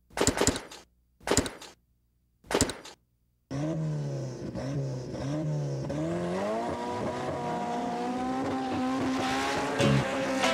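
Three short, sharp bursts with silence between them, then a car engine revving: its pitch swings up and down, climbs and holds high, and drops away near the end.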